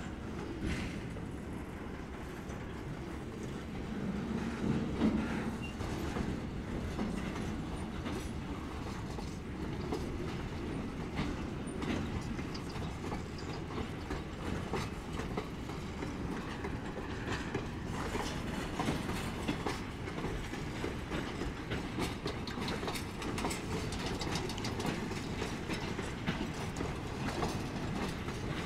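Freight cars of a work train rolling past on steel rails, with a steady rumble and irregular clicks as the wheels cross rail joints.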